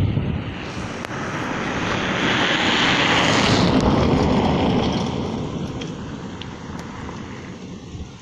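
A car speeding past on an unpaved dirt road, its engine and tyre noise swelling to a peak about halfway through and then fading away.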